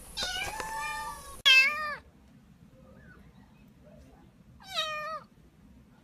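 Kittens meowing: a long, wavering meow in the first second and a half, then a short, loud meow, and another about three seconds later.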